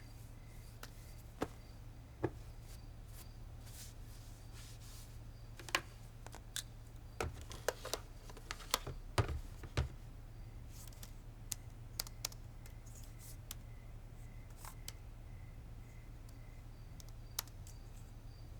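Scattered light clicks and taps, thickest about a third to half of the way through, over a steady low hum and a faint, evenly repeating high chirp.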